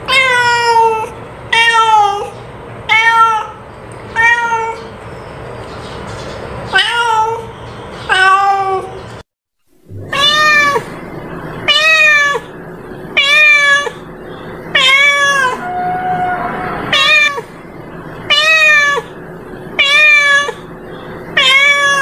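Domestic cat meowing over and over, one call roughly every second. After a brief silent break about nine seconds in, the meows come again in an even, insistent run.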